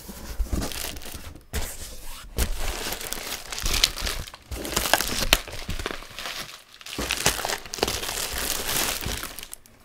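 Cardboard box flaps being opened and plastic air-cushion bubble wrap crinkling and rustling as it is pulled aside by hand, in bursts with a few short pauses.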